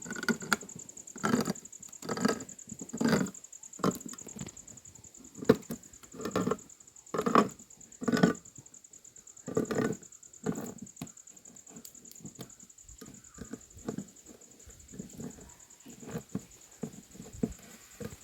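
Slow rhythmic thuds of hand food preparation in a kitchen, about one a second, louder in the first half and softer and closer together later, over a steady high-pitched whine.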